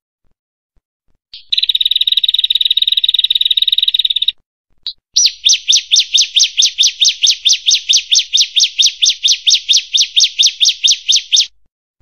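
Prenjak (prinia) song: a rapid, unbroken trill lasting about three seconds, a single short chirp, then a long run of sharp, evenly repeated notes at about four or five a second.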